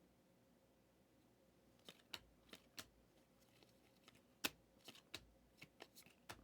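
Faint, irregular clicks and taps of trading cards being handled and flipped through by hand, starting about two seconds in.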